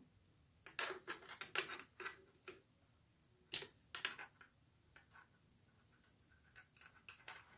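Metal parts inside a Fordomatic two-speed automatic transmission case clicking and knocking as a part is worked into place and interlocked by hand: a string of light clicks and scrapes, with one sharp click about halfway through.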